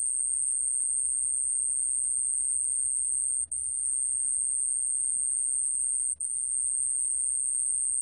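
A 좀방울벌레 cricket singing at 29 °C: a steady, very high-pitched continuous trill, broken only twice by a momentary gap.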